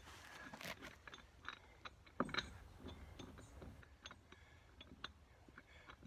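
Faint, scattered metal clicks and scrapes of lug nuts and the wheel being handled at a tractor's front hub, with one louder click about two seconds in.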